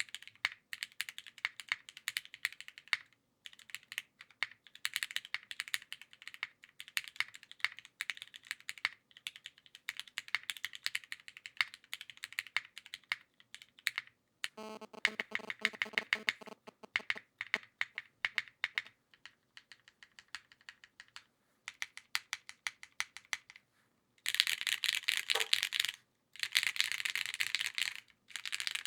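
Typing on a custom mechanical keyboard with an aluminium plate and Rouge Jerrzi and Cherry MX Black switches: bursts of keystrokes with short pauses between them. About halfway through comes a fast, even run of keystrokes, and near the end a few seconds of faster, louder typing.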